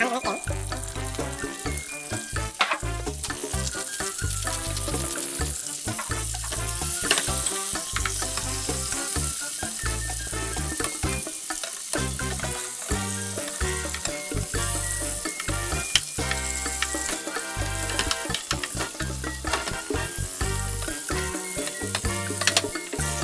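Asparagus, button mushrooms and garlic cloves sizzling in a frying pan of leftover butter, oil and steak juices, with scattered clicks of tongs against the pan as the vegetables are turned. Background music with a steady bass line plays underneath.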